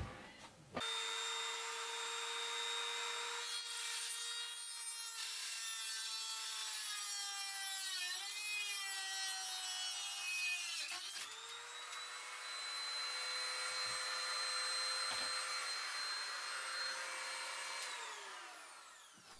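A handheld rotary tool's cut-off wheel grinding through a steel rod, its motor whine sagging and wavering in pitch under the load. About eleven seconds in the whine falters and then runs steady and a little higher as the tool spins with its cutting wheel gone. Near the end it winds down and stops.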